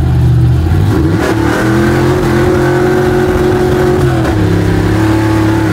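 Chevy C10 truck's small-block Chevy V8 engine running under acceleration on the road. Its note rises about a second in, holds steady, then drops slightly about four seconds in.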